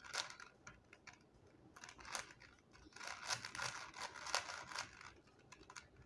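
Plastic 4x4 Rubik's cube being turned by hand: faint, irregular clicks and clacks of its layers twisting.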